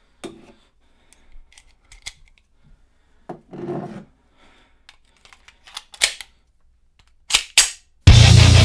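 Sparse clicks, knocks and a brief rustle of handling noise, then two sharp clicks close together near the end. The heavy metal band then comes in at full volume with distorted guitars.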